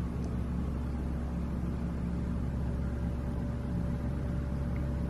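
A steady low hum with a light hiss of background noise, unchanging throughout, with no distinct events.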